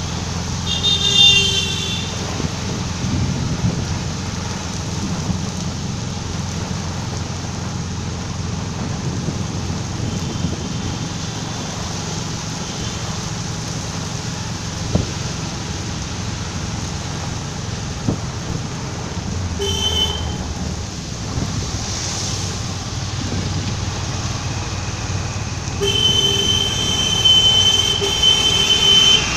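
Steady engine rumble and road noise of a moving vehicle on wet streets, heard from inside. A vehicle horn sounds briefly about a second in and again near the twenty-second mark, then for about three seconds near the end.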